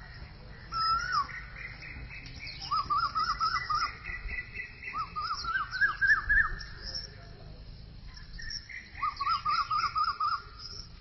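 A bird singing: a short whistled phrase about a second in, then three runs of quick, rapidly repeated chirping notes.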